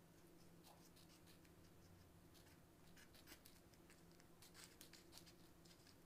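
Faint snipping of small scissors cutting floral tape lengthwise: a scatter of light clicks, busier in the second half, over a faint steady hum.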